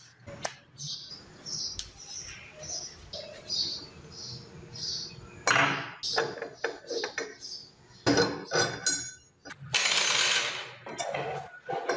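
Adjustable wrench parts being handled and put back together on a tabletop: metal clinking, clicking and scraping in short bursts. In the first half there is a run of faint, evenly spaced high ticks, and a longer scrape comes near the end.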